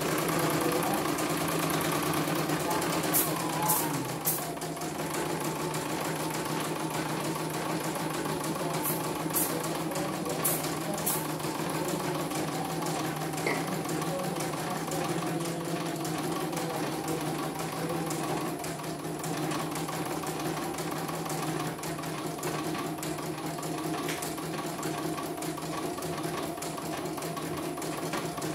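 CNY computerized embroidery machine running, its needle stitching a design at a steady pace. The motor whine drops in pitch about three seconds in and then runs steady, with a few sharp clicks.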